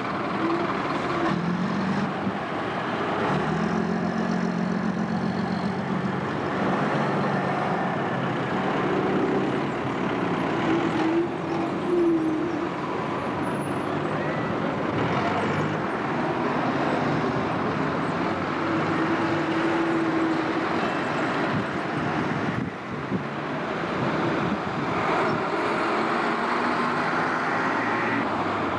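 Diesel bus engines running at low speed in busy street traffic, with cars passing and engine notes coming and going as buses move off.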